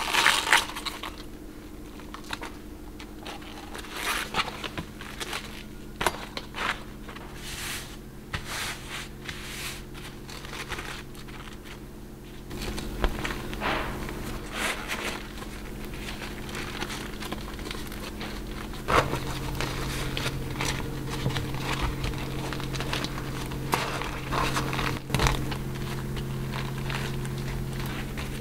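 Beeswax food wrap crinkling and crackling as hands fold and press it around a cabbage head. Near the start, crisp cabbage leaves snap and rustle as they are peeled off. A steady low hum runs underneath.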